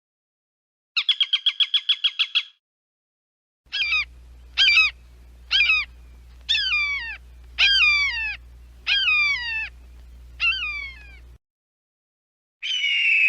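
Peregrine falcon calling. First a fast cackling run of about a dozen harsh notes. Then eight loud calls about a second apart, each sliding down in pitch, and near the end a harsh, drawn-out scream begins.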